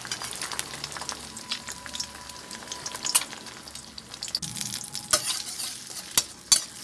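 Two eggs frying in hot oil in a steel wok, crackling and sizzling steadily. In the second half a metal ladle knocks against the wok a few times with sharp clicks as it scoops oil and breaks up the eggs.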